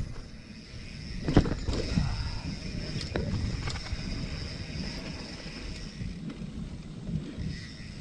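Niner Jet carbon mountain bike rolling along a dirt singletrack: tyre rumble and wind on the camera microphone, with a few sharp knocks and rattles from the bike over bumps, the loudest about one and a half seconds in.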